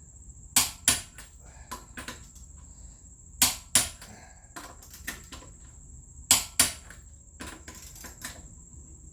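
Torque wrench tightening wheel lug nuts: sharp clicks in pairs, three pairs about three seconds apart, each pair marking a nut reaching its set torque, with lighter ticks between.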